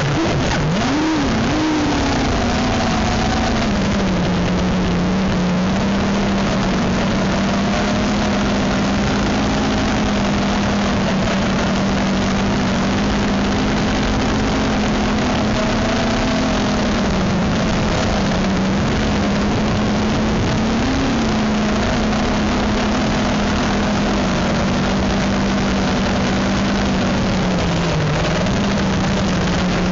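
FPV quadcopter's brushless motors and propellers droning steadily over a rushing hiss. The pitch swings up and down with the throttle in the first couple of seconds, rises briefly about two-thirds of the way in, and dips near the end.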